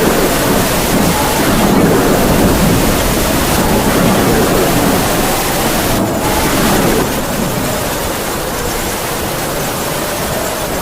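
Heavy rain falling steadily, with wind howling over it in a faint wavering pitch that drifts up and down.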